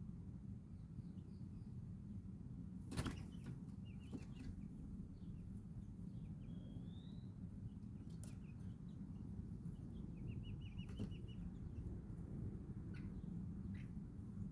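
Chickens and chicks in a coop: scattered short high peeps and chirps, one rising chirp about seven seconds in and a quick run of notes near eleven seconds, over a steady low rumble. A sharp knock about three seconds in, the loudest sound, and a smaller one near eight seconds.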